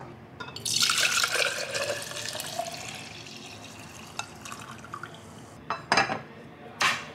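Liquid poured from a pot into a tall glass, a splashing pour whose pitch rises as the glass fills, then tapering off. A few sharp clicks near the end.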